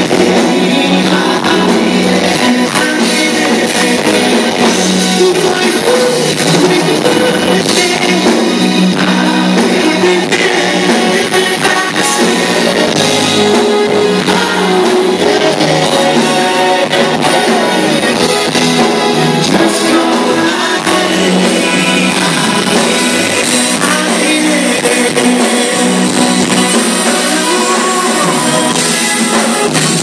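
Male vocal group singing live into microphones over a band with electric guitar and drum kit, a soul-pop ballad, recorded on a phone in the audience.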